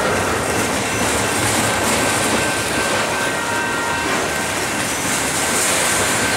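Double-stack container well cars rolling past at close range: a steady, loud rumble of steel wheels on rail, with faint thin high tones running through it.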